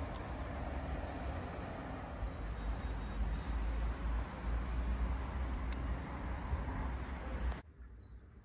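Steady outdoor rumble of town traffic with a deep, uneven low drone. It cuts off suddenly near the end to a much quieter indoor hush with one faint high chirp.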